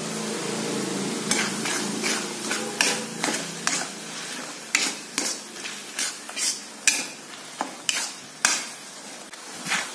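Metal spatula stir-frying vegetables, meatballs and egg in a non-stick wok over a gentle sizzle. From about a second in, the spatula scrapes and knocks against the pan in quick strokes, about two a second.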